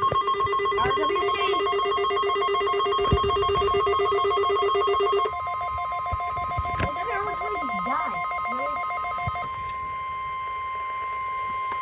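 Weather alert radio sounding its alarm. A rapid pulsing multi-tone beep runs for about five seconds, then gives way to a steady tone with a fainter pulsing beep under it that stops about three-quarters of the way through.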